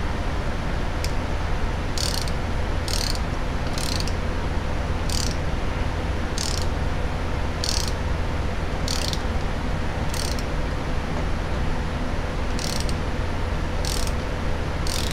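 Ratchet wrench clicking in short bursts, roughly one a second with a longer pause near the end: the pawl ratchets on each return stroke as a tapered pipe-thread tap is worked by hand into an aluminum transmission case. A steady low hum runs underneath.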